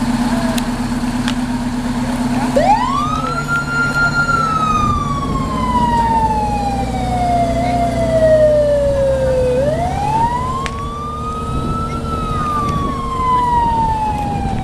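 Fire truck siren wailing: it rises steeply about two and a half seconds in, falls slowly, then rises and falls a second time. A truck engine runs steadily underneath.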